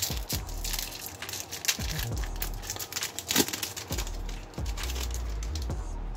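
Foil booster-pack wrapper being torn open and crinkled as the trading cards are slid out, a dense irregular crackling with one sharper crackle about halfway through.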